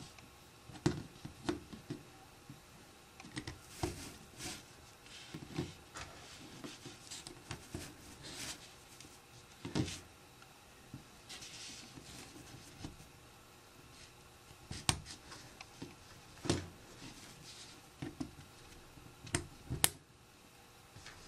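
Small plastic Lego bricks being handled and pressed together: irregular light clicks and clatter, with a handful of sharper snaps as pieces lock into place.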